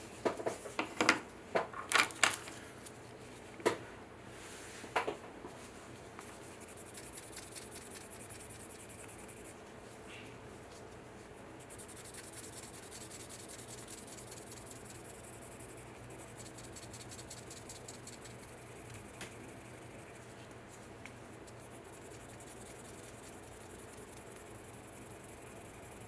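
Sanding block rubbed back and forth over a 3D-printed UV-resin diamond, a steady fine scratching of rapid short strokes. Several sharp knocks and clicks in the first five seconds.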